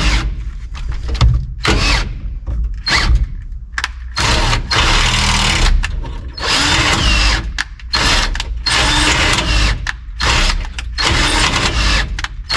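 Power drill boring out a hole in plastic, switched on and off in a dozen or so short and longer runs.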